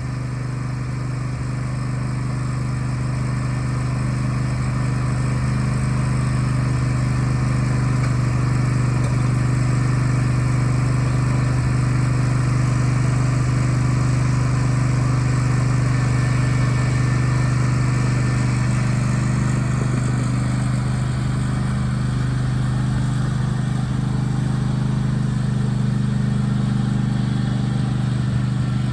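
Riding lawnmower engine running steadily at a constant pitch as the mower drives, getting slightly louder over the first few seconds.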